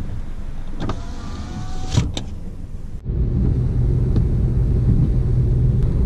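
Low rumble of a car, with a faint rising whine about a second in. About halfway through it cuts to the louder, steady engine and road rumble heard inside the car's cabin.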